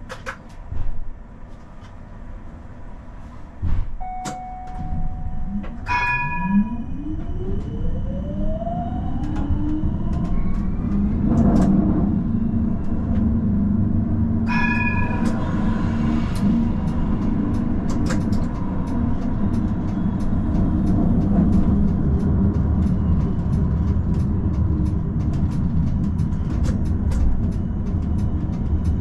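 Amsterdam tram pulling away from a stop: a steady beep about four seconds in, then a ringing chime, then the traction motor whine rising in pitch over about five seconds as it speeds up. A second chime rings about fourteen seconds in, then the tram runs on with a steady rumble and scattered clicks from the rails.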